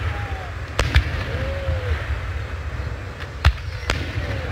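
Fireworks display: aerial shells bursting with sharp bangs, two close together about a second in and two more around three and a half seconds in. Short whistling glides come between the bangs, over a steady low rumble.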